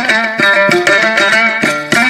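Dambura, the Afghan two-string long-necked lute, played solo: quick, steady strumming strokes, about three to four a second, carrying a melody of changing notes.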